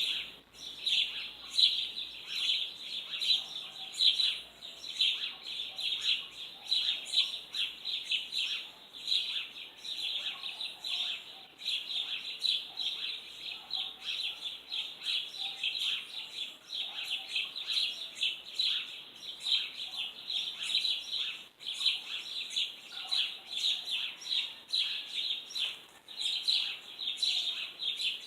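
Small birds chirping: a steady, unbroken stream of quick, high chirps, several a second.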